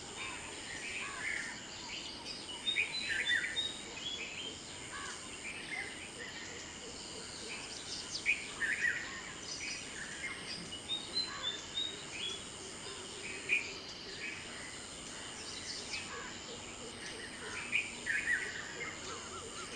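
Several songbirds chirping and singing in a morning chorus, short high calls overlapping from moment to moment. Behind them is a steady high-pitched insect trill that stops and restarts every few seconds.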